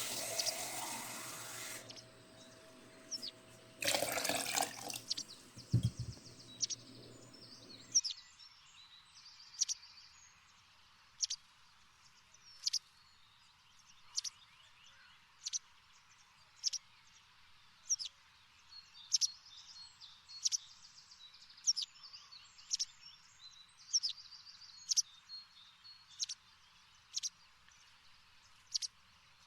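Water running briefly at the start and again about four seconds in, then a small bird chirping over and over, about once every second and a half, over a faint hiss.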